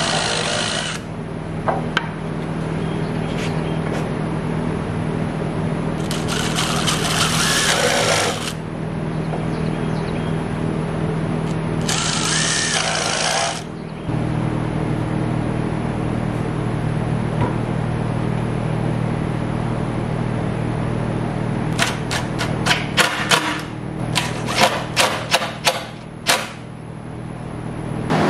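Cordless drill driving screws into wood trim strips on a wooden tabletop, in three runs of a couple of seconds each, over a steady low hum. Near the end comes a quick run of sharp knocks and clicks.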